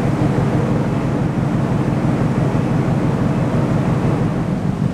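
Steady low drone of a whaling factory ship's onboard machinery.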